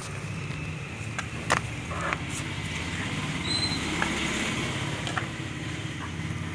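A dog mouthing and knocking a plastic bottle about on a tiled floor: scattered clicks and knocks, the sharpest about a second and a half in, over a steady low hum.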